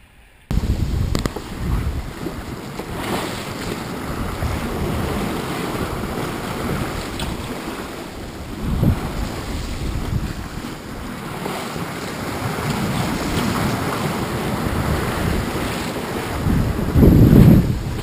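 Wind buffeting the microphone over the rush of waves and water along a sailboat's hull at sea. The noise starts abruptly, rises and falls in gusts, and has its heaviest buffet near the end.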